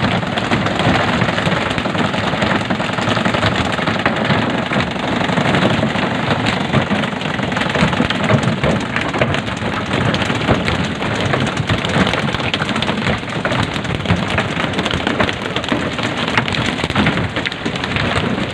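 Steady hiss of splashing seawater, dense with small knocks and slaps as tuna are jerked aboard on pole-and-line and land on the wooden deck.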